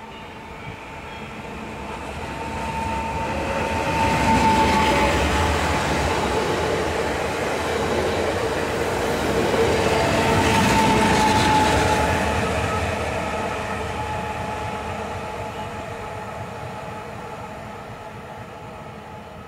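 Koleje Małopolskie EN76 (PESA Elf) electric multiple unit passing along the platform. The rumble of its wheels on the rail rises, is loudest from about four to twelve seconds in, then fades as it draws away, with a steady high whine over it.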